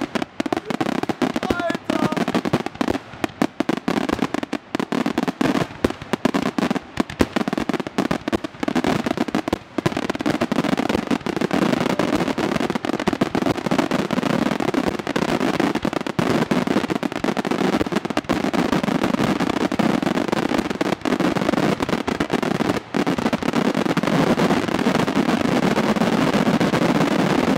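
Aerial fireworks display: a rapid barrage of shell bursts and bangs. The sharp reports come thick and fast for the first ten seconds or so, then merge into a denser, almost continuous crackling roll.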